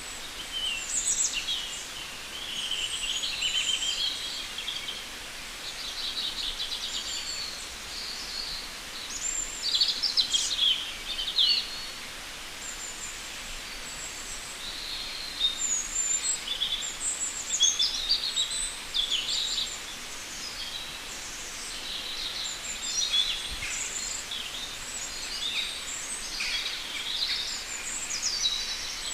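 Wild birds singing and chirping, with short trills and quick rising and falling notes, over a steady background hiss.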